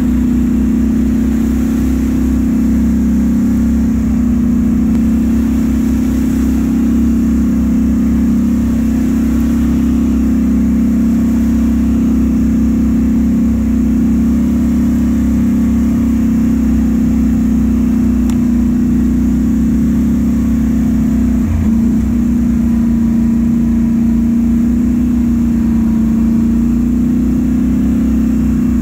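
Side-by-side UTV engine running steadily under way, heard from on board: a loud, even drone that wavers briefly about two-thirds of the way through.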